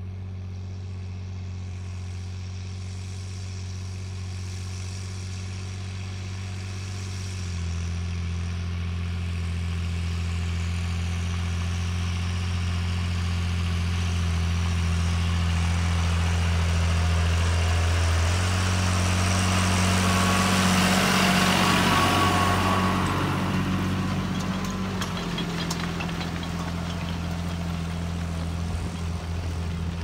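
Tractor engine running steadily under ploughing load, its note changing twice. A rushing noise swells and fades about two-thirds of the way through.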